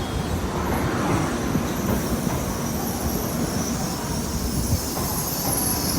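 N700S Shinkansen train running on its rails: a steady, dense rumble of wheels and track noise with a hiss that grows stronger toward the end.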